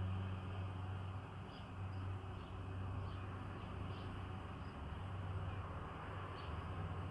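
Outdoor ambience recorded as room tone: a steady low hum under a faint background wash, with short, faint high chirps here and there.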